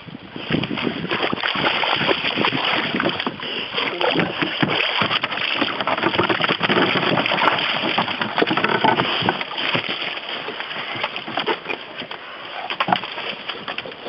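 Close, continuous splashing and sloshing of water with knocks and scrapes against the canoe as a wet Cesky Fousek gun dog moves about in it. It starts suddenly about half a second in and eases a little in the last few seconds.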